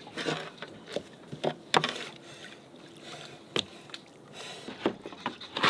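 Water splashing and slapping around a boat's hull in irregular sharp splashes, with a steady wash of water between them.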